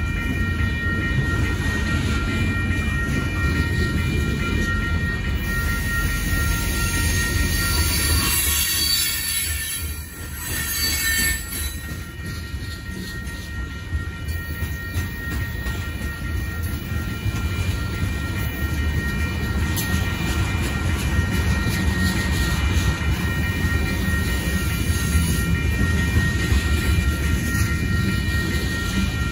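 Freight cars of a long Union Pacific manifest train rolling past at a grade crossing: a steady low rumble of wheels on rail, with several steady high-pitched tones running over it. The rumble dips briefly about ten seconds in.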